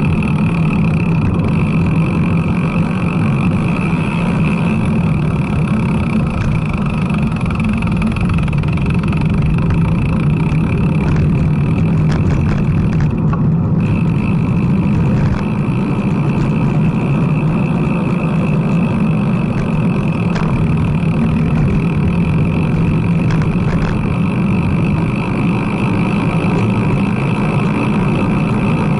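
Steady rush of wind on the microphone and tyre noise from a road bicycle rolling on asphalt. The hiss dips briefly about halfway through.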